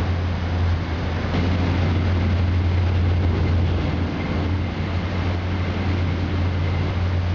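Stretch film shredding line running: the shredder and its conveyors make a steady industrial drone with a strong, constant low hum.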